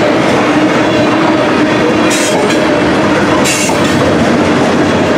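Grain train's cars rolling past, a steady loud clatter of wheels on rail, with two brief high-pitched hisses from the wheels about two seconds and three and a half seconds in.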